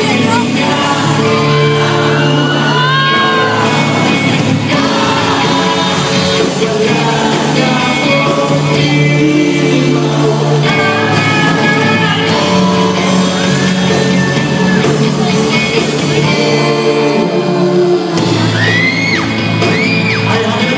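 Live band playing a song: a male singer singing into a microphone over electric guitar and a drum kit.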